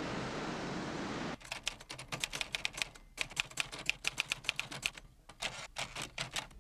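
Typewriter keys being struck in quick runs of about five or six clicks a second, with short breaks between runs. It is preceded by a steady rushing street noise that cuts off about a second and a half in.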